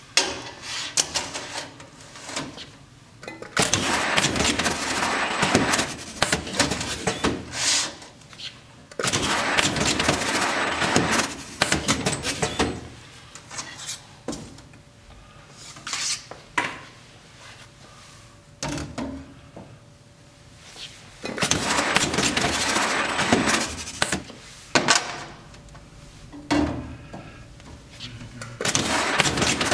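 Tape banding machine cycling again and again, wrapping reinforced filament tape around stacks of heavy metal parts, each cycle a noisy stretch of about three seconds. Between cycles, metal parts clatter and click as stacks are handled on the steel table.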